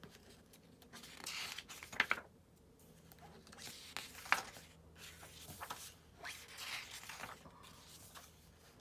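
Paper pages of a book being turned one after another: several short papery swishes and rustles.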